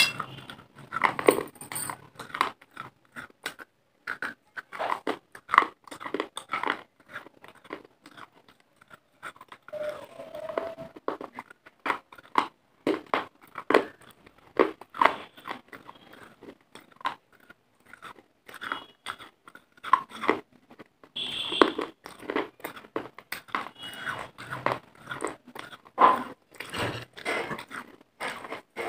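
Close-miked crunching and chewing of pieces of clay, with dense, irregular crisp crunches.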